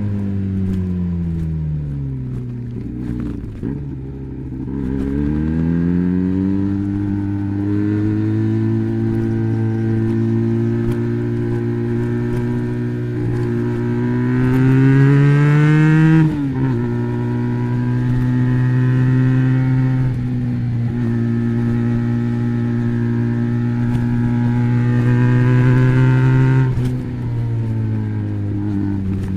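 Benelli BN302's 300 cc parallel-twin engine running through an Arrow exhaust with the dB killer fitted. The note falls, climbs and holds steady, then climbs to a peak about halfway through and drops sharply, holds again, and dips once more near the end.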